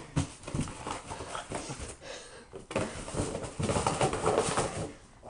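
Boston terrier puppies pawing and nosing into a cardboard box, with scratching, scraping and rustling of cardboard and packing paper. It gets busier from about three seconds in.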